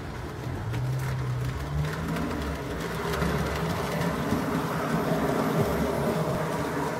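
Model railway train, a small steam-outline locomotive with its wagons, running along the track: a steady electric-motor hum with wheel noise, the hum rising in pitch about a second in.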